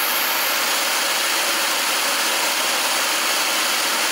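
Handheld gas blowtorch burning with a steady, loud hiss as its flame heats a 9mm brass case packed with shotgun-shell buffer.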